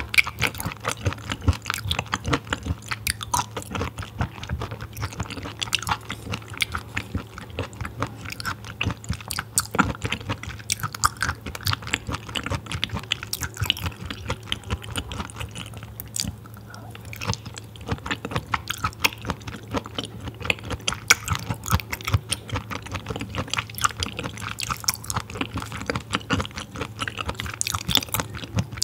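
Close-miked chewing of raw filefish sashimi: a steady run of small wet clicks and squishes from the mouth, going on all through.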